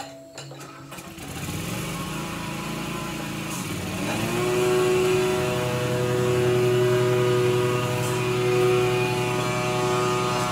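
A motor or engine drone that swells in about a second in, rises in pitch around four seconds in, then holds at a steady pitch.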